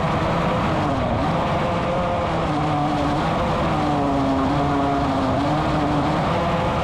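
270 micro sprint's engine heard from on board at racing speed, its pitch dipping and rising several times with the throttle through the corners of a dirt track.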